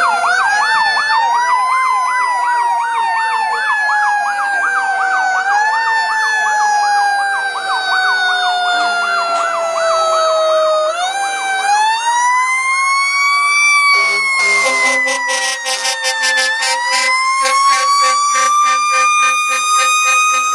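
Fire truck sirens wailing: a siren repeatedly winds up in pitch and slowly coasts back down, overlapped during the first half by a rapid warbling yelp. From about two-thirds through, steady low horn-like tones sound under the wail.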